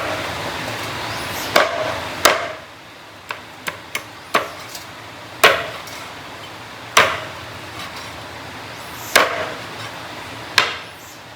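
A series of about ten sharp knocks at uneven intervals, some with a short ringing tail, from food being chopped or struck during cooking.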